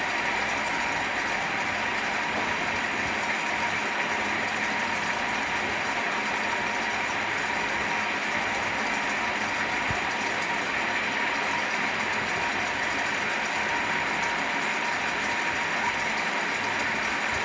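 Electric fan running steadily: an even rush of moving air with a faint steady hum underneath.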